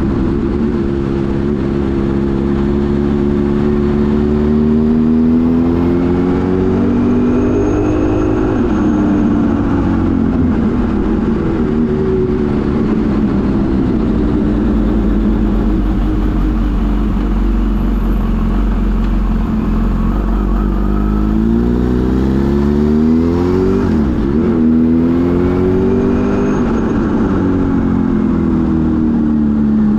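Kawasaki Z H2 SE's supercharged inline-four engine pulling under way. Its pitch climbs over the first eight seconds, drops, holds fairly even, then climbs again with a brief dip as a gear is shifted about three-quarters through, and falls away near the end.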